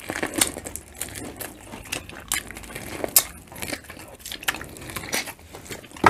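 Close-miked eating sounds: chewing and wet mouth clicks as corn on the cob and seafood are bitten and eaten, with irregular small clicks and crackles and a sharper click near the end.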